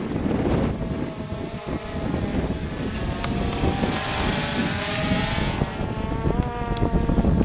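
DJI quadcopter's propellers whining overhead, the pitch bending slightly as it manoeuvres, with a rushing hiss swelling about four seconds in as it flies closest. Wind buffets the microphone throughout.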